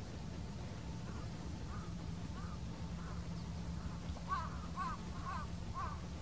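Waterfowl on a lake giving a run of short calls, about two a second, growing louder from about four seconds in. A splash on the water comes about four seconds in.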